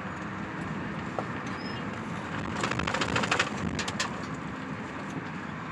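Steady road and tyre noise of a moving car heard from inside its cabin, with a short patch of crackling about halfway through.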